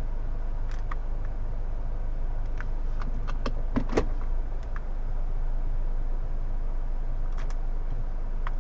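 Steady low hum inside a car with a few light clicks scattered through it, mostly in the first half.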